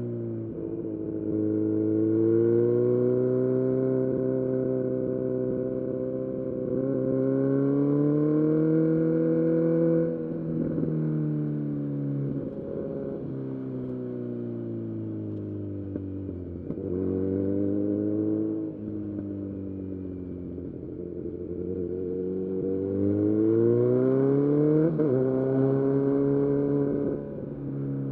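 Kawasaki Z900's inline-four engine through a full-system aftermarket exhaust, heard while riding. The revs climb and hold high, fall away about a third of the way in, then climb hard again late on before dropping off near the end.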